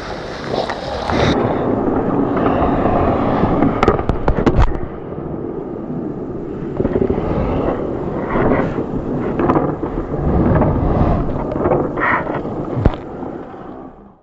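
Ice hockey play heard through a camera mounted inside a goalie's mask: a rough, rumbling scrape of skates on ice and mask handling noise, with a quick run of sharp clacks about four seconds in and a single sharp knock near the end before the sound fades out.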